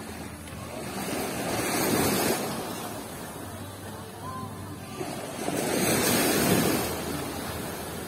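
Small waves washing up on a sandy beach, surf swelling and fading twice, about four seconds apart.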